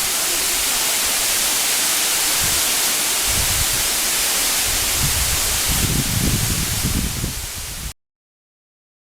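Makhuntseti waterfall's rushing water: a steady, even hiss, with an uneven low rumble coming and going from about two and a half seconds in. It cuts off suddenly near the end.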